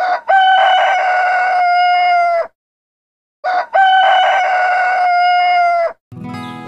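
A rooster crowing twice, each crow a short opening note and then a long held note that drops a little as it ends, with a pause of about a second between the two.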